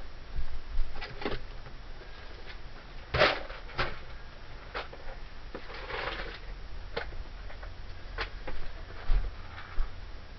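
Scattered handling sounds: light knocks and clicks with a couple of short rustles, the loudest about three seconds in, as items are moved about.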